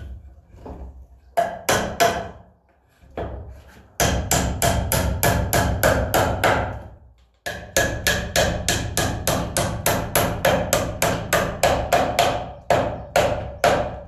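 Hammer driving nails into the wooden boards of a birdhouse roof: a few separate taps, then a fast run of blows at about five a second, a short break about seven seconds in, and another long run of blows.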